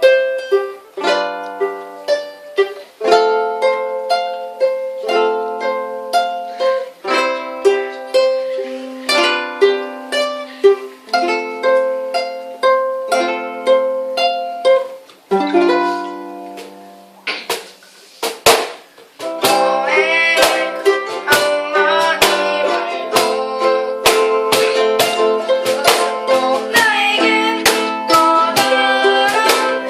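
Ukulele strumming chords, about one stroke a second through the first half. After a short break with a few sharp strokes about two-thirds in, the strumming turns denser and continuous.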